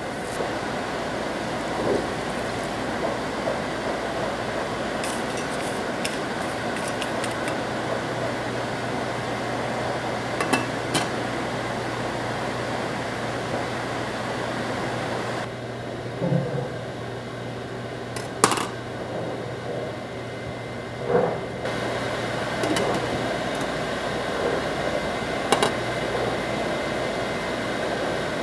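Saucepan of frozen green beans heating on an electric stove: a steady hiss with a handful of short clinks of the pot and its glass lid.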